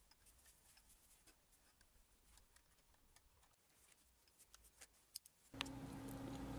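Near silence with a few faint metal clicks from a gear puller being worked on an electric motor's shaft. About five and a half seconds in, a low steady hum rises under more light clicks.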